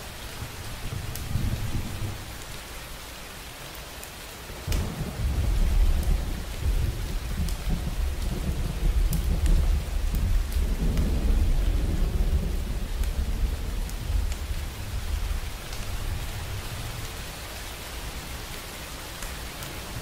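Steady rain with scattered sharp drop ticks. A deep low rumble of thunder comes in suddenly about five seconds in, holds for about ten seconds, then dies away.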